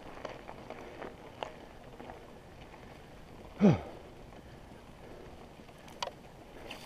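Mountain bike rolling along a dirt singletrack through brush, with tyre and trail noise and a few sharp clicks and rattles. About halfway through, one brief, loud falling tone that is the loudest sound here.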